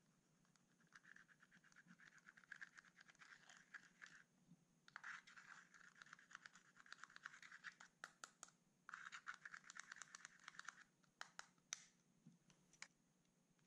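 Fingernails scratching and crumbling pressed eyeshadow out of its compact: three runs of rapid, fine scratching, then a few light taps near the end. Quiet throughout.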